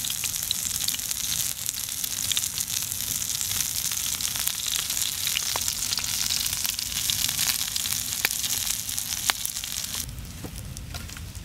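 Dried fish sizzling on a round metal pan over a wood fire: a steady frying hiss with scattered sharp pops. The sizzle falls away about ten seconds in.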